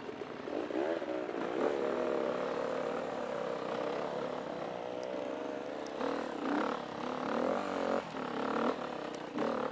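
KTM 350 EXC four-stroke single-cylinder dirt bike engine revving as the bike pulls away and rides along a trail. The pitch climbs about a second in, holds fairly steady, then rises and falls repeatedly with the throttle and gear changes from about six seconds on.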